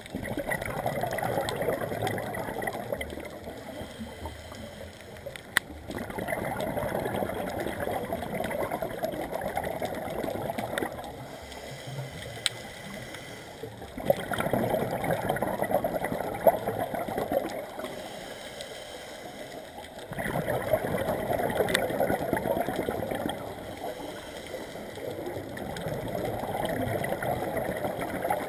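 Scuba regulator exhaust bubbles heard underwater: five long gurgling rushes of exhaled air, one every six seconds or so, with quieter gaps between breaths and a few sharp clicks.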